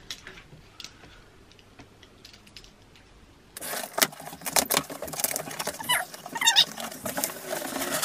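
Packing tape on a cardboard box being slit and torn open with a pen. A few faint taps, then from about halfway a dense, rapid run of scratching, clicking and tearing.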